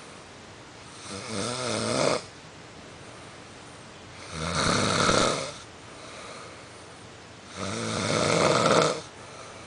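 A man snoring loudly in his sleep: three long rasping snores about three seconds apart, with quieter breaths between them.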